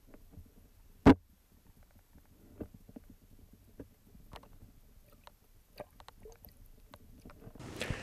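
Quiet handling noises: one sharp knock about a second in, then scattered faint clicks and taps.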